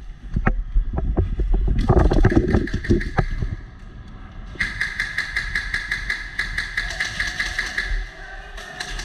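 Airsoft guns firing: rapid strings of sharp cracks with scattered shots. About halfway in, a longer burst of evenly spaced shots rides over a steady whine and stops shortly before the end.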